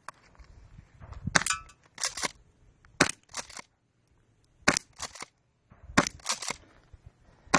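Airsoft gun firing: about ten sharp cracks in quick groups of two or three, with short pauses between groups as the shooter moves from target to target.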